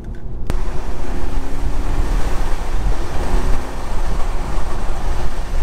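A loud, even rush of wind and road noise inside the cabin of a moving Audi S3 sets in suddenly about half a second in, over a low engine drone.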